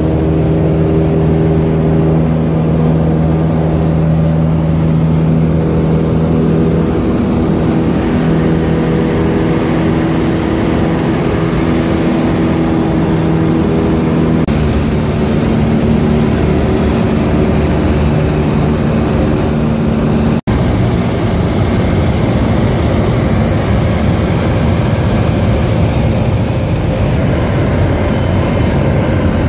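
Piper Tri-Pacer's piston engine and propeller droning steadily in cruise, heard inside the cabin. The engine note shifts in pitch about halfway through, and the sound drops out for a split second about two-thirds in.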